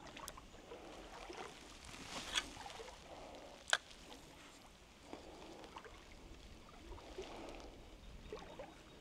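Faint creek water trickling and lapping, with a few sharp clicks or taps, the loudest about two and a half and nearly four seconds in.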